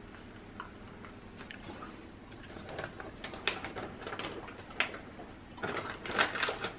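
Scattered light clicks and short crackly rustles, growing busier about halfway through, as a small dog is given a snack on a tiled floor.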